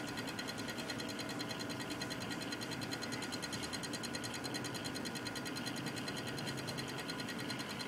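Cooler Master Real Power Pro 550 W computer power supply making a rapid, even ticking over a steady faint whine: an abnormal clicking noise from the unit.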